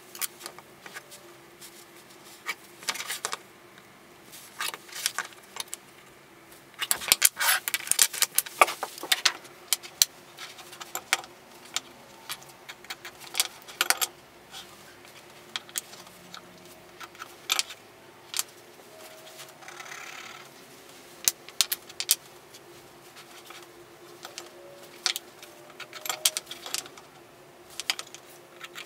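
Sharp clicks, taps and clatters of small walnut blocks and metal marking tools (a steel rule, a combination square, a mechanical pencil) being handled and set down on a workbench, with a dense run of knocks about seven to nine seconds in. A faint steady hum lies underneath.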